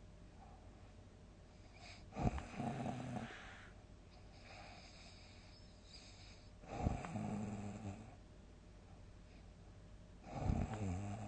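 A person snoring loudly in deep sleep: three big snores about four seconds apart, each starting abruptly and going on as a low, buzzing rattle for about a second, with softer breathing between them.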